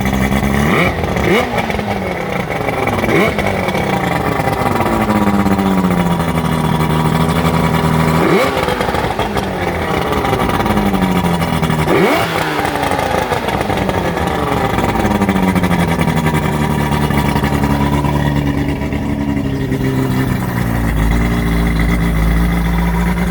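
Boat engine being revved in short throttle blips, about five times, each rev rising quickly and falling slowly back toward idle, then settling into a steady idle near the end.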